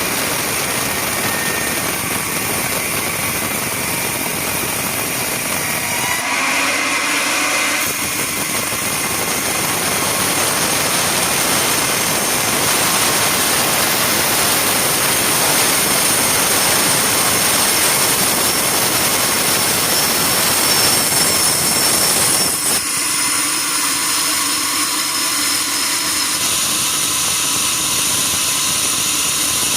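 Sawmill saw running and cutting timber: a loud, steady machine noise that changes briefly about six seconds in and loses some of its lower range a little past twenty seconds.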